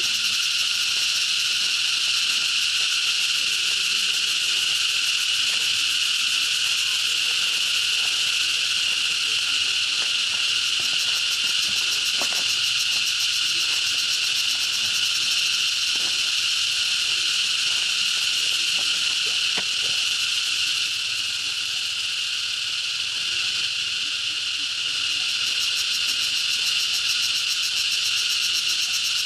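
Steady, high-pitched chorus of insects: a continuous drone that barely changes, dipping slightly in level about three quarters of the way through.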